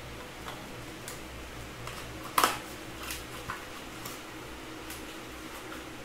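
Scattered light clicks and taps from a RAM kit's retail packaging being cut open and handled, with one louder sharp snap about two and a half seconds in, over a steady low hum.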